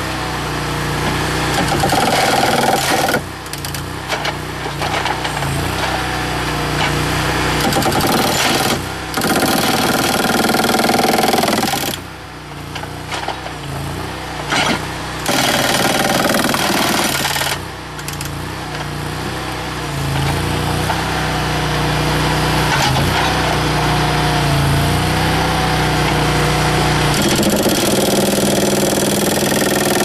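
Huskie HH100 hydraulic breaker hammer on a mini skid steer pounding a concrete slab. It fires in runs of a few seconds with short breaks, over the skid steer's engine running steadily.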